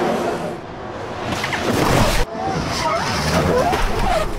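Formula One TV broadcast replay-transition sound effect: a whoosh that swells over about a second and cuts off sharply about two seconds in.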